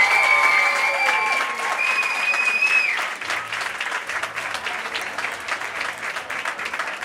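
Crowd applauding and cheering: long high-pitched shrieks of cheering ride over the dense clapping for the first three seconds, then the clapping goes on alone, a little quieter.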